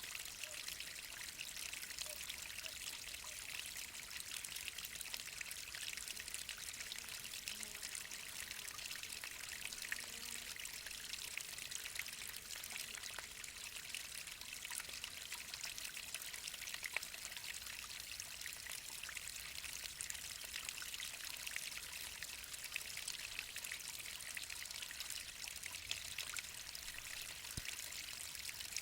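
Water of a roughly 20 m mountain waterfall pouring and splashing steadily, an even hiss with small splashes through it.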